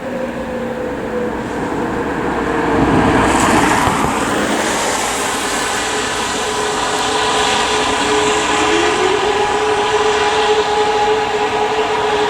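E57 mechanical rotor siren sounding a fire-brigade call-out alarm: its tone falls away at the start, then about two-thirds of the way through it winds up again and holds a steady wail. A broad rushing noise swells and fades a few seconds in.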